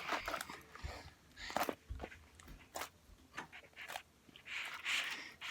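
Butter slime being squeezed and worked by hand: irregular sticky clicks and soft squelches, with a longer rustling squish near the end.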